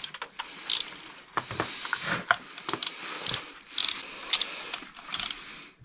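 Ratchet wrench clicking in short, irregular runs, with metal tool handling, as a new spark plug is turned into the engine.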